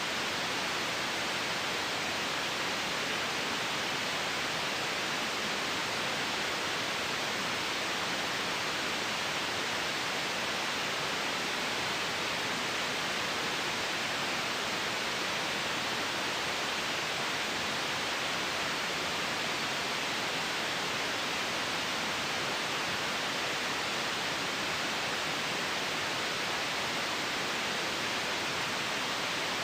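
Steady, unchanging white noise: an even hiss that holds the same level throughout, with most of its weight in the upper middle and less in the lows.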